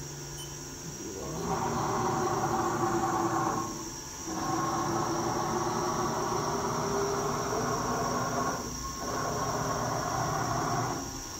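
Haas TM2 vertical mill's axis drive (servo motor and ball screw) moving the X axis at speed, a steady quiet whine in three long strokes, dipping briefly as it reverses about four and nine seconds in.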